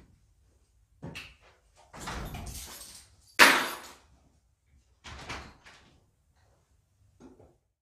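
A door being opened and shut, with a sharp bang about three and a half seconds in and several softer knocks and rustles before and after.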